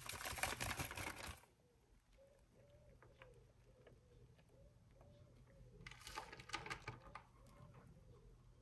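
Shredded cheese rustling as it is handled and scattered by hand onto a lasagne, loudest in the first second and again around six seconds in. Underneath, a faint low cooing note repeats about twice a second.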